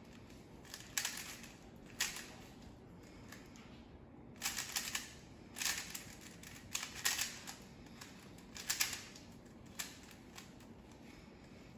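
3x3 Rubik's cube being turned by hand: short flurries of plastic clicking and clacking as the layers are twisted, separated by brief pauses.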